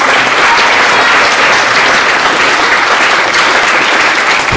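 Audience applauding: many people clapping together in a dense, steady patter that echoes in a large hall.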